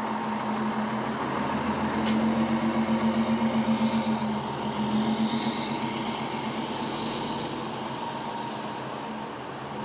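Fire engine's diesel engine running close by, a steady low hum that throbs quickly for a couple of seconds near the middle.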